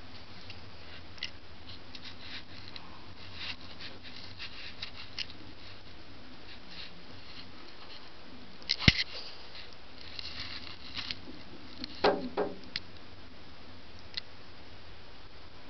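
Scattered light clicks and taps on the camera body as a large lizard noses at and bumps the lens, with one sharp knock about nine seconds in and a short cluster of knocks around twelve seconds.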